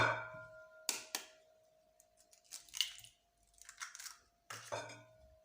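Eggs being cracked one at a time: two sharp knocks of shell on a bowl about a second in, then short crackling bursts as the shells are broken open.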